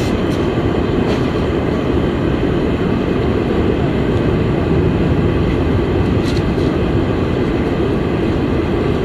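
Steady low rumble of a Boeing 747-400's four engines and airframe heard inside the cabin while the jet is on the ground before take-off, with a few faint clicks.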